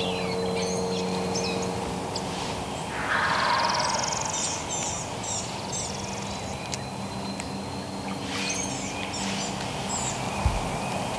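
Woodland songbirds chirping and calling in short, scattered notes, with one louder sweeping call about three seconds in.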